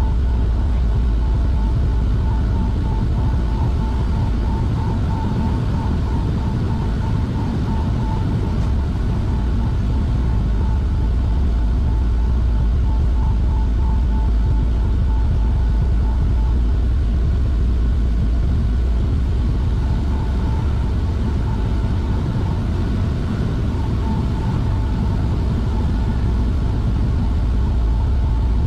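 Chiller plant machinery running steadily: a loud, even low hum with a faint, wavering higher tone above it.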